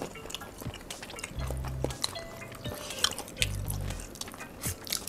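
Close-miked eating of meatball soup: spoons clicking against ceramic bowls and wet chewing sounds. Under it runs soft background music with a low bass note about every two seconds.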